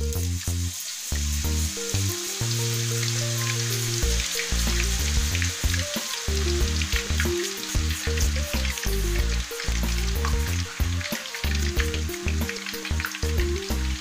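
Freshly grated potato shreds deep-frying in hot oil in a wok: a dense, steady sizzle full of small crackles, with background music underneath.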